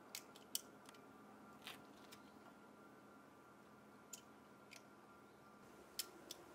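Clamps being fitted and adjusted on a glued-up wooden table base: a handful of sharp, scattered clicks and light taps, unevenly spaced, over near silence.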